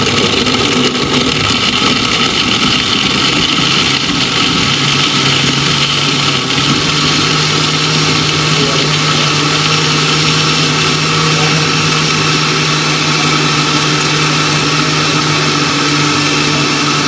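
Electric countertop blender motor running at speed, blending a milky shake with ice; its pitch steps up a little about seven seconds in.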